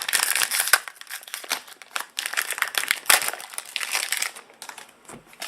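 Pokémon TCG booster pack's foil wrapper crinkling in irregular rustles as it is handled and opened.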